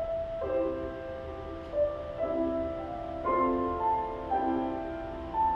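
Slow, gentle instrumental music: a keyboard plays single notes and soft chords, a new one starting about every second.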